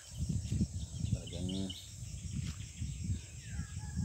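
Insects, crickets by the sound of it, chirring steadily in a fast pulsing trill, with a few short bird chirps. Irregular low thumps and rumble on the microphone are louder than the insects, and a short pitched call comes about a second in.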